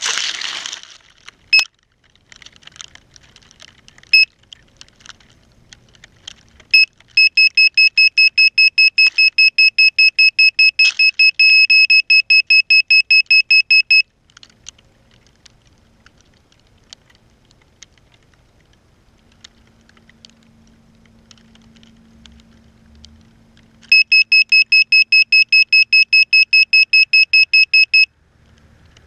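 Electronic buzzer on a crashed quadcopter beeping: a few single high beeps, then rapid runs of about four beeps a second, one lasting about seven seconds and another about four seconds near the end. A brief burst of noise fades out in the first moment.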